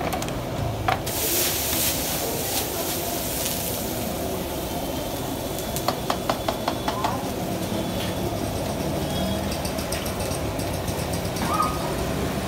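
Chilli-chicken gravy sizzling and bubbling in a hot steel wok over a gas burner, with a louder hiss for a couple of seconds as sauce is poured in near the start. Around six seconds in, a quick run of about six metal clinks of the steel ladle against the wok, over a steady background rumble.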